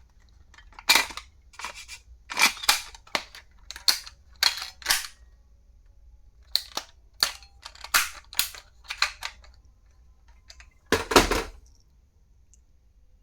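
A run of sharp clicks and snaps from stationery items being handled, irregular and spaced about half a second to a second apart, ending in a louder clatter near the end.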